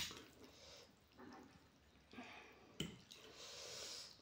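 Two metal forks mixing and lifting sauce-coated instant ramen noodles on a plate: faint soft, wet squelching, with a light click about three seconds in.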